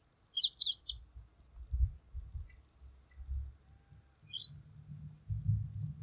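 Bengal bush lark calling: a quick burst of high, thin chirps about half a second in, then a single short call about four seconds later.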